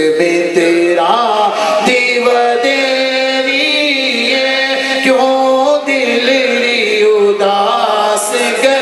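A man singing a devotional verse in long held notes that bend and turn in ornaments.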